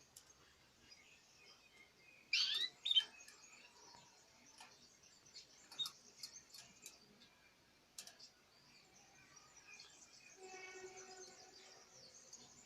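Pet canaries and parrots chirping and calling: scattered short high chirps, a loud burst of sweeping calls about two and a half seconds in, and a lower, longer call for about a second near the end.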